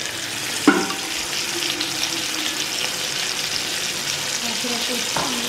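Butter and olive oil sizzling steadily in a hot pan as pieces of raw chicken are laid in to sear, with a short clatter about a second in.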